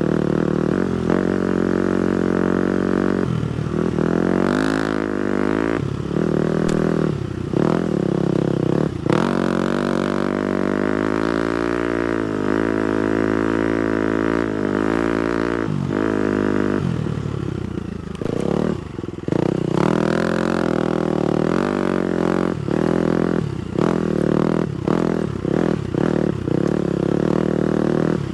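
A 250cc four-stroke single-cylinder dirt bike engine revving up and down under changing throttle. It makes a longer wavering pull in the middle and many quick throttle-off dips near the end.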